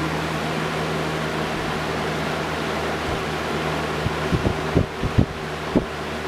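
1995 Lasko 20-inch box fan, model 3723, with its older-style Marco motor, running on high speed: a steady rush of air over a low hum. A few low thumps come in from about four seconds in.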